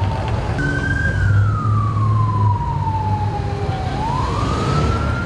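Emergency vehicle siren in a slow wail: one tone falls in pitch over about three seconds, then rises again near the end, over a steady low rumble.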